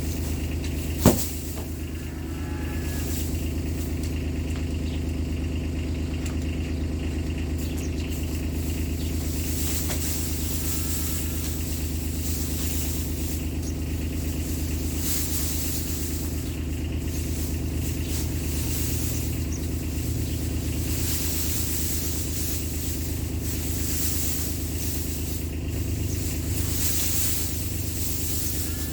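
Side-by-side utility vehicle's engine running steadily, with one sharp knock about a second in and a few faint squeaks.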